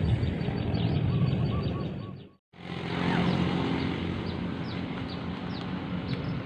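Birds calling with short, repeated falling chirps over a steady low rumble, broken by a brief gap about two and a half seconds in.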